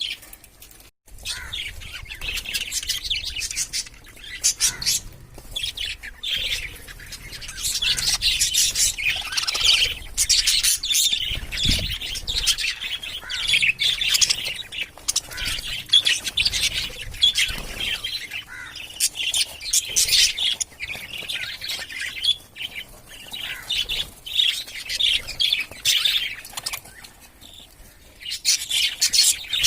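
A group of pet budgerigars chirping and chattering continuously, with dense, rapid high-pitched chirps and occasional squawks.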